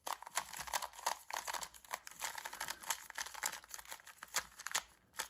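Quick, irregular plastic clicking and rustling from handling a small 2x2 speedcube.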